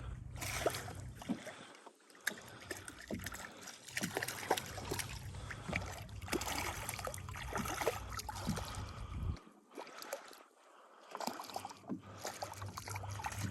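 Small-boat noise while a hooked crappie is played: a steady low hum that drops out a few times, about two seconds in and for nearly two seconds past the middle, with scattered light clicks and knocks.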